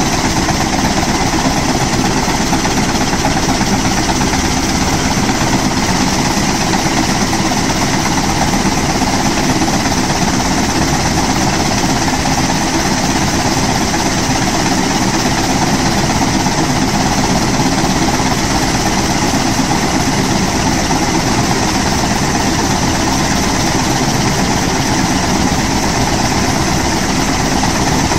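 Kaman K-MAX intermeshing-rotor helicopter running on the ground before liftoff. Its single Honeywell T53 turboshaft engine and turning rotors make a loud, steady sound that does not change.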